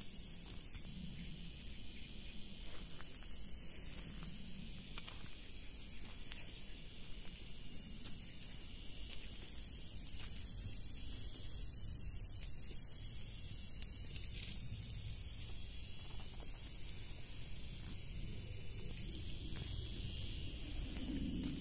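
Steady high-pitched chorus of insects, with a low rumble beneath it.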